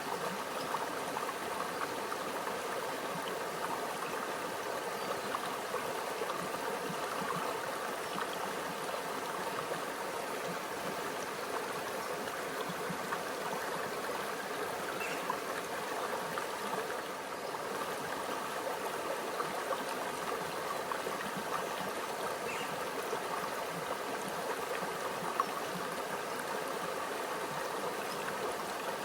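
Small stream flowing and babbling over rocks, a steady, even rush of water with light trickling.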